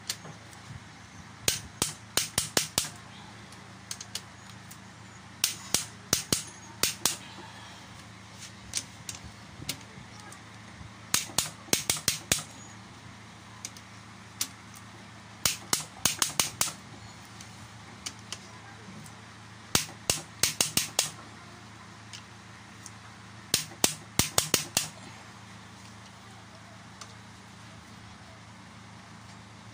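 Socket wrench ratcheting in six short runs of sharp clicks, about four seconds apart, as the main bearing cap bolts of a Nissan MR18 engine block are tightened down. A steady low hum runs underneath.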